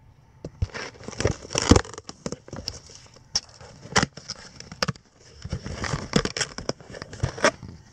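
Cardboard shipping box being opened by hand: flaps scraping and flexing as they are pulled back, and crumpled packing paper inside crinkling, in irregular bursts with sharp clicks.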